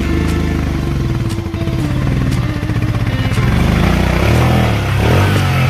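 Royal Enfield Himalayan's single-cylinder engine running as the motorcycle rides an off-road trail, revs rising and falling with the throttle.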